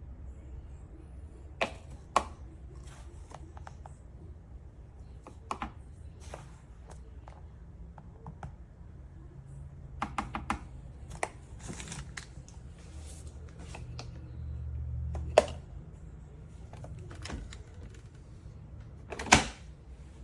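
Scattered plastic clicks and knocks as parts of a Ninja Pods & Grounds single-serve coffee maker are handled, with a sharper knock about fifteen seconds in and another near the end, over a low steady hum.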